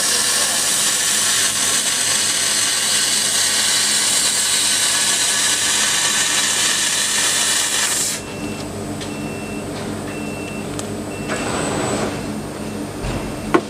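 Fiber laser cutting head cutting 12 mm carbon steel plate: a loud, steady hiss of the cut and its assist-gas jet, which cuts off suddenly about eight seconds in. After that the machine hums more quietly, with a few short, evenly spaced high beeps.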